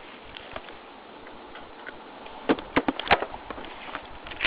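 A quick run of about six sharp clicks a little past halfway, over a steady background hiss.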